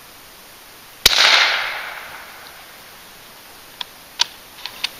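A suppressed .308 bolt-action rifle fires one subsonic round about a second in: a single sharp report with an echo that fades over about a second. Near the end come several short metallic clicks as the bolt is worked to chamber the next round.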